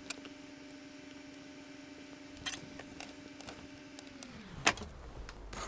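Light clicks and taps of small parts being handled and pressed into a bare circuit board, a few seconds apart, over a faint steady hum that slides down in pitch and stops a little after four seconds in.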